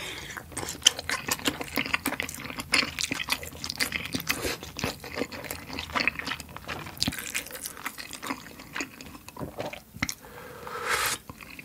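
Close-miked wet chewing of a soft, broth-soaked potato dumpling, with a steady run of small smacks and clicks. Near the end comes a longer slurp as spicy broth is sipped from a bowl.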